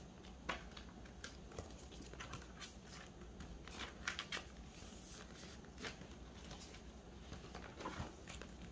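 Faint rustling and clicking of clear plastic binder sleeves as postcards are slid into their pockets, with a binder page turned near the end.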